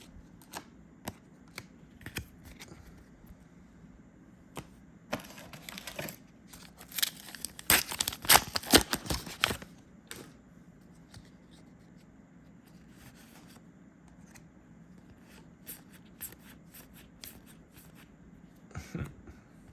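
A foil trading-card booster pack being torn open and crinkled, loudest from about five to ten seconds in, with scattered light clicks of cards being handled before and after.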